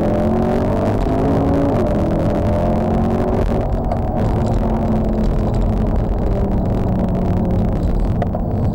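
Mercedes-Benz C63 AMG V8 heard from inside the cabin under hard acceleration, the engine note climbing, dropping once at an upshift about two seconds in, climbing again, then settling into a steady run at speed.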